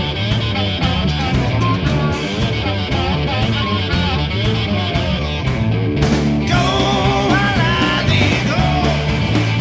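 Rock band music with a steady beat, guitar and singing. It grows fuller, with more cymbal wash, about two-thirds of the way through.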